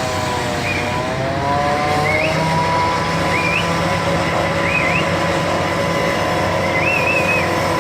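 A large engine running steadily, its pitch dipping and rising again about a second in, over a constant loud rumble. Short, high chirping squeaks recur about every one and a half seconds.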